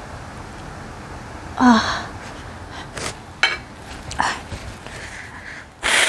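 A woman lets out a short, loud pained gasp about two seconds in, reacting to the burn of ghost pepper noodles. A few short breathy sniffs follow, then near the end she blows her nose hard into a tissue.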